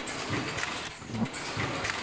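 Automatic mask welding machine running, its mechanisms knocking in a quick, uneven rhythm of about three knocks a second over a steady hiss.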